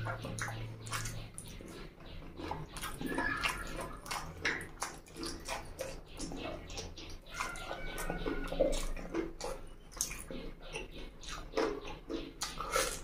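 Close-up wet eating sounds: chewing and lip-smacking on chicken feet curry and rice, an irregular run of sticky clicks and squelches.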